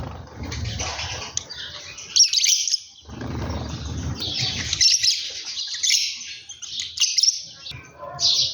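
A flock of small birds chirping and tweeting over one another without a break. Two stretches of low rumble sit under the chirping, in the first two seconds and again from about three to five seconds in.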